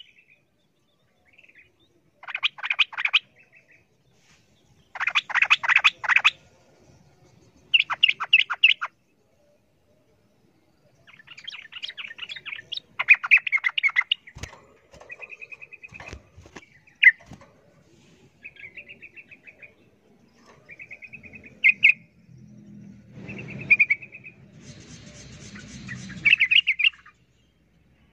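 Yellow-vented bulbul singing noisily in about ten short bursts of rapid, bubbling chatter, with pauses between them: the combative song of a bulbul challenging a rival. A few sharp knocks come about halfway through.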